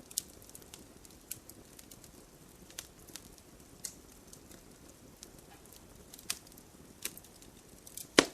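Firewood burning in a fireplace, crackling: scattered sharp pops and snaps over a soft low hiss, with the loudest pop near the end.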